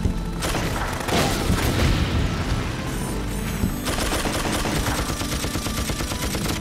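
Rapid automatic gunfire and blasts, a dense run of shots that grows thicker in the second half, over background music.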